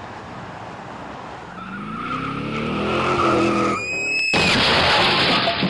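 Steady road noise in a moving lorry's cab, then a rising pitched whine and a brief high tyre squeal. A little over four seconds in comes a loud crash of crumpling metal as a small hatchback slams into the back of a lorry, lasting about two seconds.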